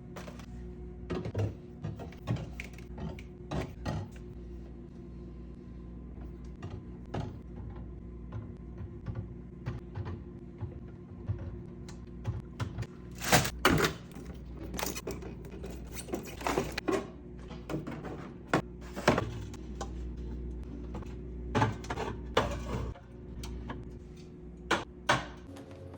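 Groceries and plastic containers being handled and set down while restocking a fridge: irregular clicks, knocks and light taps, loudest about halfway through and again near the end, over a steady low hum.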